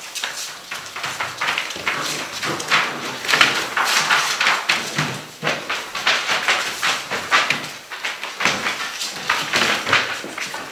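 Six-week-old Gordon Setter puppies scrambling and wrestling on a sheet over paper floor covering: an irregular run of rustling, scuffling and claw scratches.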